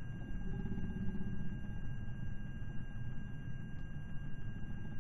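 A steady, high electronic whine made of two fixed tones, over continuous low rumbling background noise.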